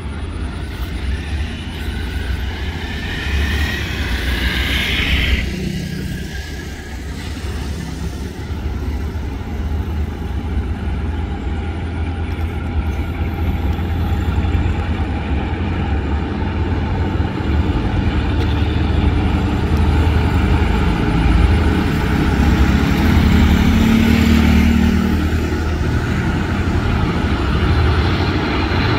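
State Railway of Thailand GE diesel-electric locomotive and its train running through a station: a steady low engine and rail rumble that grows louder as the train comes closer, with a brief rising tone about four seconds in.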